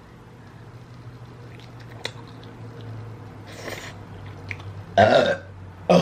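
A woman burping loudly after drinking beer: one long burp about five seconds in and a short one right at the end, with a few small mouth clicks before.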